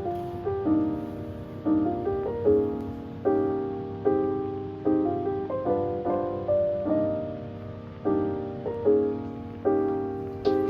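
Soft background piano music: gentle chords struck about once a second, each fading away, over a steady low bed.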